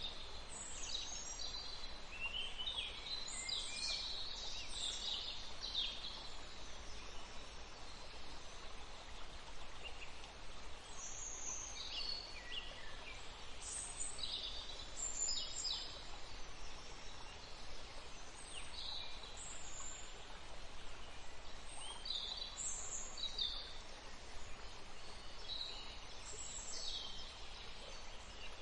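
Birds chirping and calling in short, high chirps scattered throughout, with several calls close together in places, over a steady background hiss.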